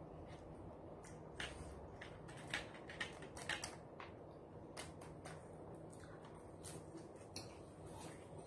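A person chewing food with the mouth closed: faint, scattered soft clicks and crackles, most of them in a cluster a second or two in.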